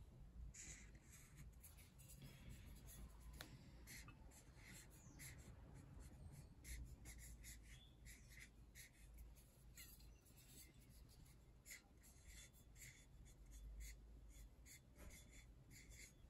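Faint, irregular squeaks and scratches of a marker pen writing letters on a metal bottle, in short strokes one after another.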